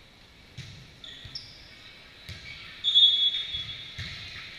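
Volleyball rally in a gym: the ball is struck with sharp smacks about half a second in, a little after two seconds and near the end, amid short high squeaks, the loudest about three seconds in.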